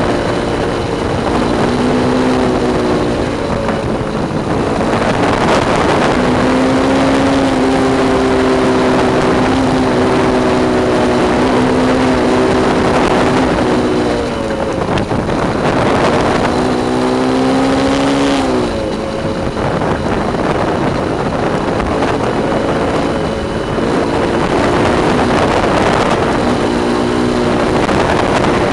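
Rushing wind and rolling noise of a recumbent trike coasting fast downhill on asphalt, with a humming whine that shifts in pitch as the speed changes and slides down about two-thirds of the way through.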